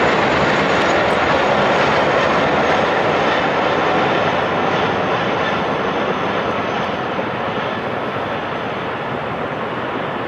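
A group of helicopters flying over, a steady dense engine and rotor noise that slowly fades from about halfway through as they move away.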